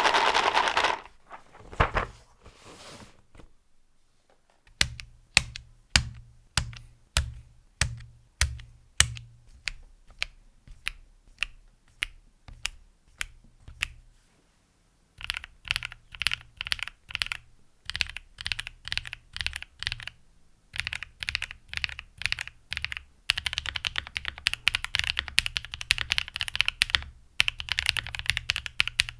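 Typing on a Monsgeek M3 mechanical keyboard (aluminium gasket-mount case, polycarbonate plate, Aflion Tropical Waters switches, GMK Gregory keycaps). After a brief noisy swell at the start, single keystrokes come about one and a half a second, then short bursts of typing, then fast continuous typing for the last quarter or so.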